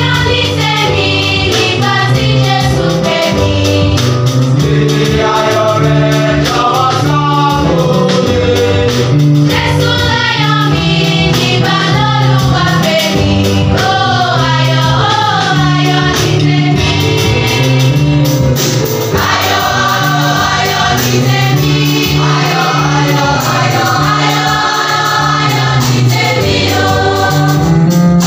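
A school choir singing a song together, accompanied by an electronic keyboard and a drum kit. The music plays continuously and steadily.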